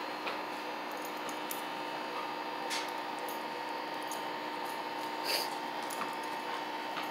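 Small electric bubble-blower machine running, its fan motor giving a steady hum, with a few faint clicks over it.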